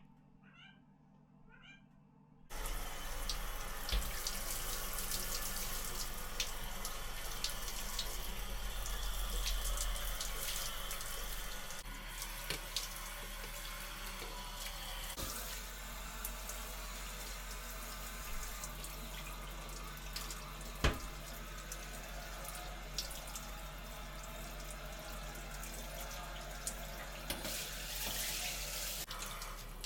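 Kitchen tap turned on about two seconds in, water running steadily into the sink, with a few sharp knocks as dishes are handled; the flow stops just before the end.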